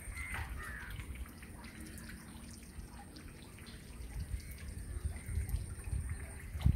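Water trickling and dripping, under irregular low rumbling thumps on the microphone, the loudest near the end, and a faint steady high-pitched whine.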